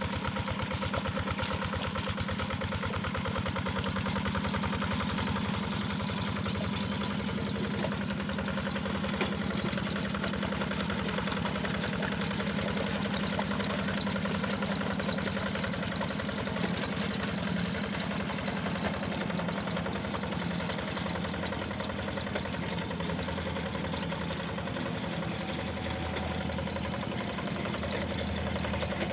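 A hand tractor's Yanmar single-cylinder diesel engine running steadily with a fast, even chugging.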